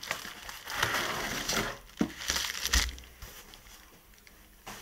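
Bubble-wrap packaging crinkling and crackling as a parcel is handled, in a few noisy bursts with a couple of sharp knocks during the first three seconds, then quieter.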